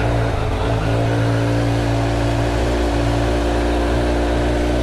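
A Kawasaki Z900's inline-four engine idling steadily just after being started. It has the light start-up crackle that the owner found on his own bike, and he takes it as the same harmless sound.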